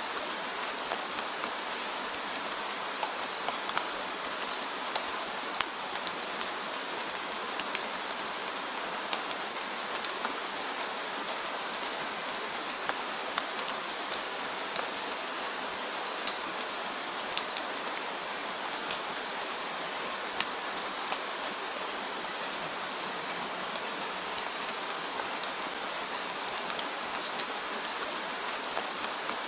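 Steady rainfall, an even hiss with scattered sharp drips of individual drops.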